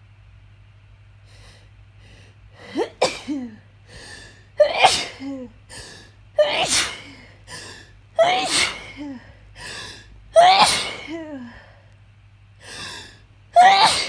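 A person sneezing in a fit: six loud sneezes about two seconds apart, each with a sharp intake of breath before it and a voiced tail that drops in pitch.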